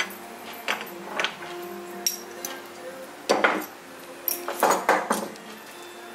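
Metal tools clinking and knocking against a small metal lathe's three-jaw chuck while the stock is being centred. The knocks are sharp and irregular, a few singly in the first two seconds, then clusters about three seconds in and again around five seconds.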